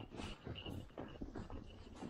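Tennessee Walking Horse's hooves crunching through snow at a walk, about four soft steps a second.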